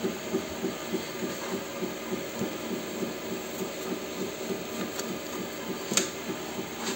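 WEISAN WM210V800 mini lathe running, its drive giving an even rhythmic throb of about five pulses a second, with a couple of sharp clicks near the end.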